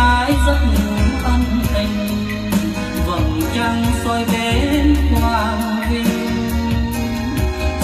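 A song with a singing voice over instruments and a strong deep bass, played through Tannoy Turnberry GR loudspeakers driven by a Unison Research Sinfonia valve amplifier.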